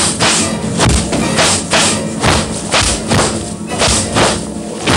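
Fight-scene music driven by percussion, with sharp hits about twice a second in a steady beat.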